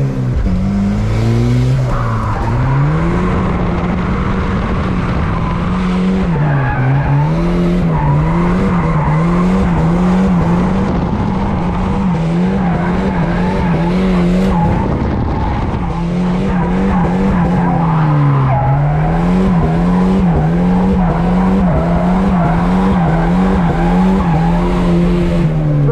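Volvo 940 turbo's four-cylinder engine held high in the revs while drifting, its pitch rising and falling over and over as the throttle is worked, with tyres squealing. Twice the revs sag and climb back up.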